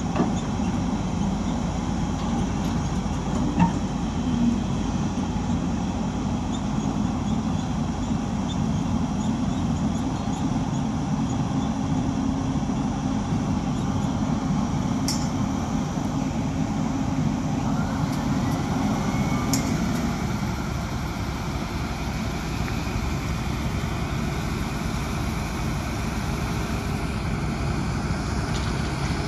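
An engine running steadily, with a tone rising in pitch about two-thirds of the way through as the deep rumble eases.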